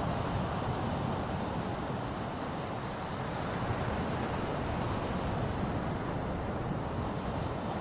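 Ocean surf: a steady rushing wash of waves, gently rising and falling in loudness.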